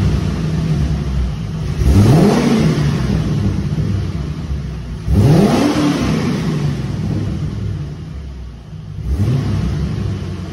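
1986 Corvette's 5.7-litre V8 through a Monza exhaust with the muffler deleted, two straight pipes feeding four tips, idling and revved three times, about two, five and nine seconds in, each rev rising then falling back to idle.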